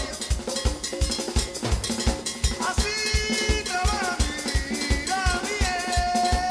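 Music over the credits: drums and percussion keep a steady quick beat, with a melody line over it.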